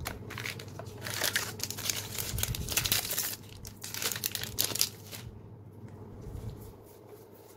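Foil booster-pack wrapper crinkling and tearing as a trading-card pack is opened, densest in the first three seconds or so, followed by lighter rustling as the cards are handled.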